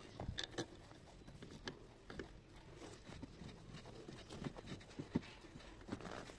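Faint handling noise: soft rustling and scattered light clicks as hands press a car seat's foam padding and cover back over the metal backrest frame.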